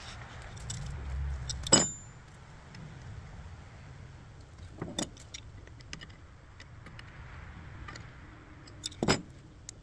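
A few sharp metallic clicks and clinks from hydraulic hose fittings being handled and undone on a mini excavator's arm. The loudest comes about two seconds in with a brief ring; others follow about five and nine seconds in. A low rumble runs through the first two seconds.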